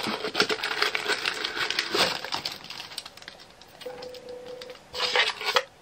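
Small plastic drill bags and scraps crinkling and rustling as they are tipped from a small plastic bin into a clear plastic bag, a dense crackle of clicks that eases off after a couple of seconds, with a short burst again near the end.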